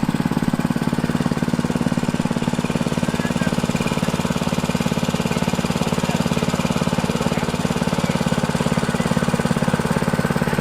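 Small engine running steadily at close range with a fast, even pulsing beat.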